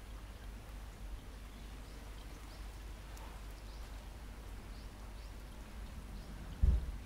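Quiet outdoor ambience: a steady low rumble with a few faint, short high chirps, and one brief low thump near the end.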